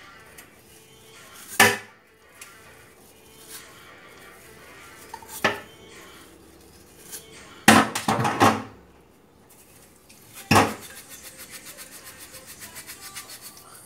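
Eating sounds: a few sharp clinks of a utensil on a plate, the loudest a quick cluster of them a little past the middle, then a fast, even run of soft ticks, about six a second, near the end.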